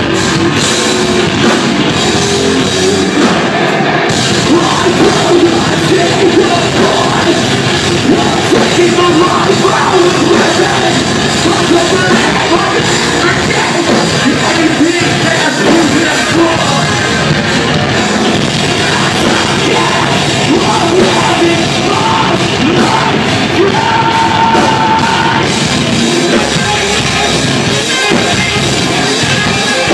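Metalcore band playing live: distorted electric guitars, drum kit and shouted vocals in a loud, dense, unbroken wall of sound, recorded from within the audience.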